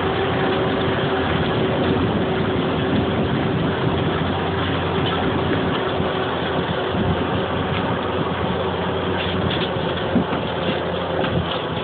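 Fendt 716 tractor's six-cylinder diesel engine running steadily under load as it pulls a cultivator through the soil, with a brief sharp click about ten seconds in.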